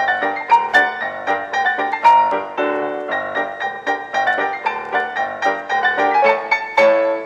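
Background piano music playing a quick, busy line of notes, several to the second.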